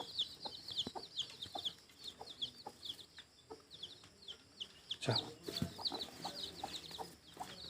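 Newly hatched chicks of a local hen peeping continuously: short, high, falling cheeps several a second, overlapping from many chicks, with occasional soft low clucks from the hen.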